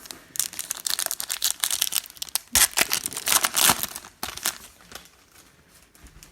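Plastic trading-card pack wrapper crinkling and tearing as a pack of football cards is opened: a dense run of crackles for about four seconds that then dies down.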